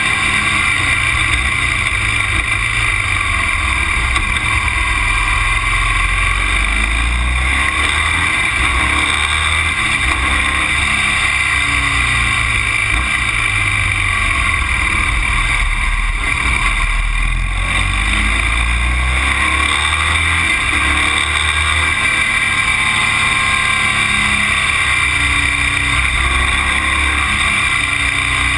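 Motor vehicle engine running on the move, its note rising and falling in steps as the revs change, over a steady high hiss.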